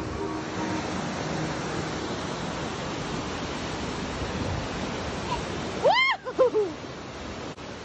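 Steady rush of water from a rocky creek and falls. About six seconds in, a brief voiced exclamation rises and falls in pitch.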